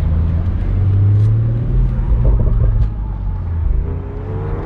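BMW Z4 M40i's turbocharged 3.0-litre inline-six running at low revs: a steady low rumble that swells about a second in and eases off after about three seconds.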